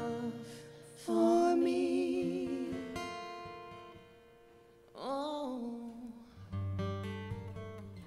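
Slow worship song: two women singing over strummed acoustic guitar. A chord rings out and fades over several seconds, then a sung note swells about five seconds in.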